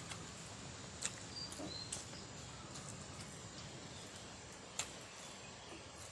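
Quiet forest background noise, steady throughout, broken by a few short sharp clicks about one, two and five seconds in, and two brief high bird chirps about a second and a half in.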